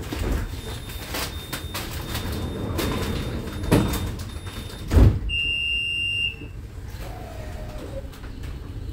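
NGT8D tram at a stop: clattering and knocks from the doors and passengers, a heavy thump about five seconds in, then a high electronic beep held for about a second, the tram's door warning signal.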